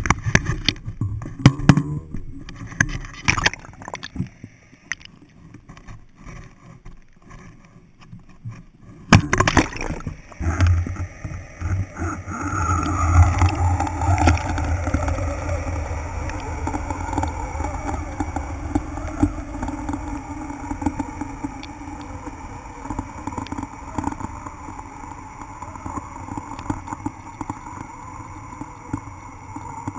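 Action camera in its waterproof housing: clicks and knocks as it is handled at the boat rail, then a splash about nine seconds in as it goes into the sea. After that comes a muffled underwater rush and low rumble as it sinks on the fishing line, easing off gradually.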